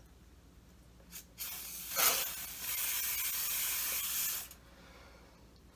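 Preval aerosol spray unit hissing as it sprays alcohol-based body paint: a short puff about a second in, then a steady spray of about three seconds that cuts off sharply.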